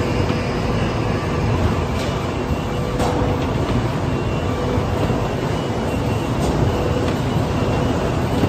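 Heavy-duty corrugated-carton flexo printer slotter die-cutter line running: a steady, dense mechanical noise with a constant hum, and a few sharp clicks now and then as boards feed through.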